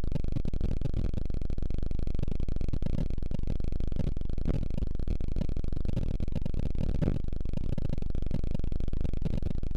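Sonification of the Delta Scuti star HD 31901's brightness pulsations, built from 55 pulsation patterns that NASA's TESS recorded over 27 days: a steady, dense low drone with a fast flutter.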